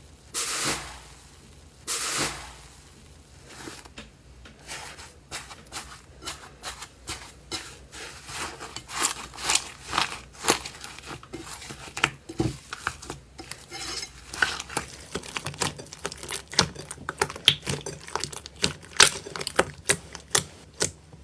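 Slime being pressed and squished by hand: two short sticky swishes at the start, then a dense run of small crackles and pops that gets busier toward the end.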